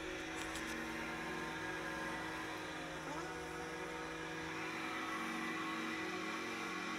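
A steady hum made of several held tones, with no clear knocks or clanks over it.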